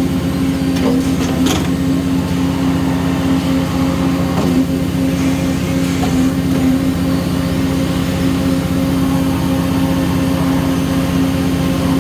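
Peddinghaus CNC beam drill line running under power: a loud, steady machine hum with a strong low tone, with a few short clicks and knocks in the first couple of seconds.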